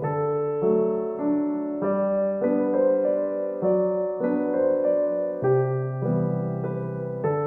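Background piano music: slow, held notes over a bass line, changing about every half second.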